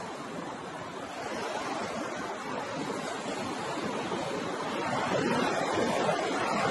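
Ocean waves washing on a shore, a steady rush of surf that swells gradually toward the end as a wave builds.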